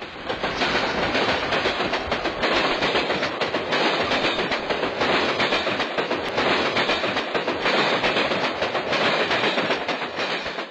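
Passenger train in motion, heard from inside the carriage: a steady running noise of wheels on the rails with a dense scatter of small knocks and rattles.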